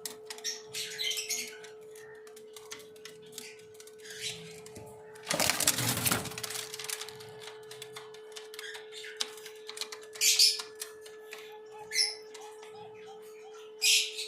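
Pet birds giving short, harsh, high-pitched calls every second or two, with a louder rustle lasting about a second, about five seconds in, over a steady hum.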